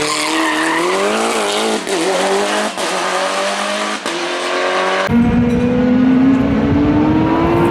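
Rally car engine accelerating hard through the gears, its pitch climbing with a short dip at each gear change. About five seconds in, the sound switches abruptly to a duller, rumbling engine note that keeps rising.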